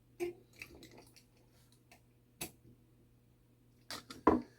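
Small metal parts and tools of a clock movement being handled during disassembly: scattered light clicks and taps, a sharp click midway, and a louder cluster of clicks with a knock near the end.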